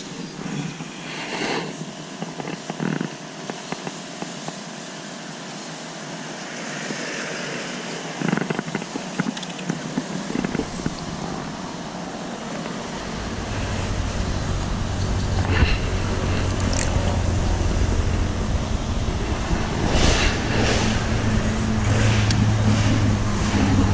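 A low, steady motor-like rumble comes in about halfway through and grows louder. Before it there are only faint clicks and knocks.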